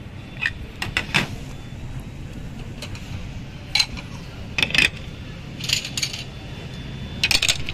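White ceramic saucers and soup bowls clinking as they are set down on a steel counter and stacked together: a series of short sharp clinks in small clusters, over a steady low background rumble.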